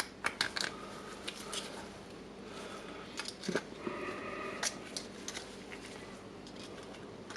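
Light metal clicks and scrapes, scattered and uneven, as a screwdriver tip pries at a spring ring (circlip) seated inside a rotary hammer drill's barrel.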